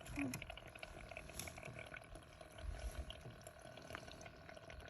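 Faint water sounds of gentle lapping and small splashes, with scattered small clicks over a steady faint hum.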